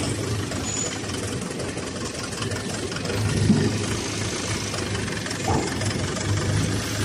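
Diesel engine running steadily with a low, even hum.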